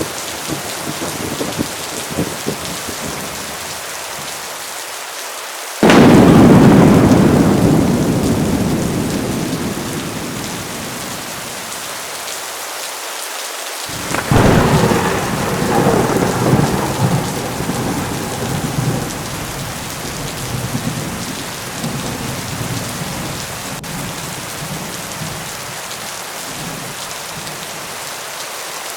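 Heavy rain falling steadily, with two claps of thunder. The first is a sudden loud crack about six seconds in that rolls away over several seconds; the second, about fourteen seconds in, is followed by a longer rumble.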